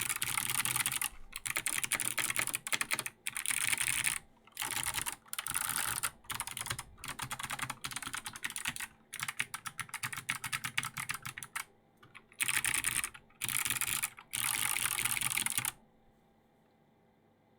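Logitech G Pro X keyboard's clicky Kailh Box Jade switches under white ABS keycaps, its modifier keys pressed in rapid bursts of crisp clicks with short pauses between. The clicking stops sharply near the end.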